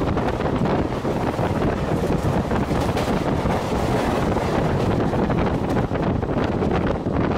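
Wind rushing hard over the microphone on top of the running noise of a passenger train at speed, with many short clicks and knocks through it.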